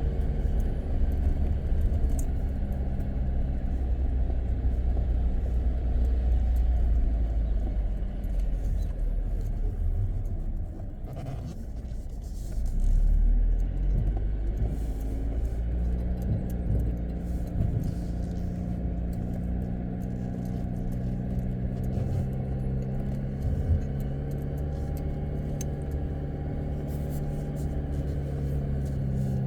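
Jeep Wrangler Rubicon driving through loose beach sand, its engine running with a steady low rumble. Around the middle the engine note falls and then rises again, with a brief heavier rumble about thirteen seconds in.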